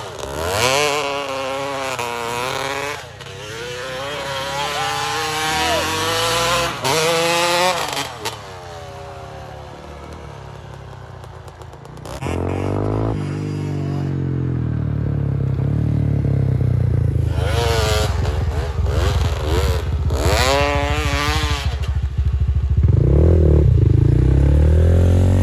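Dirt bike engine revving hard and falling back, its pitch sweeping up and down with the throttle as the bike spins and slides through snow. It drops away for a few seconds in the middle, then comes back louder and runs on.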